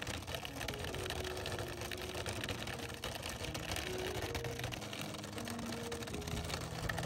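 Small wooden cart on little wheels rattling in a rapid, continuous clatter as it is dragged over rough, muddy ground.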